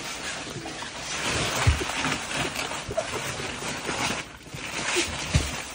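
Crackling and tearing of layered present wrapping (tape, plastic shrink wrap and paper) as it is ripped open, with a couple of dull bumps from the box being handled.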